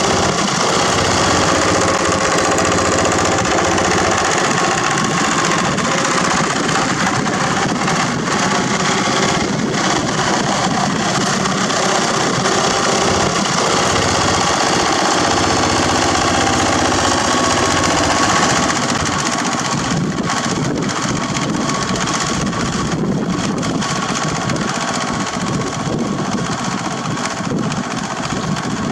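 Yanmar TF105 two-wheel walking tractor's single-cylinder diesel engine running steadily under load while its rotary tiller churns through rice-stubble soil.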